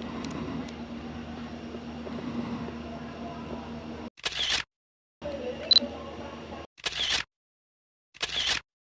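A steady low background hum, then after about four seconds three short, sharp camera shutter clicks, each set apart by complete silence. A single short high beep falls between the first two clicks.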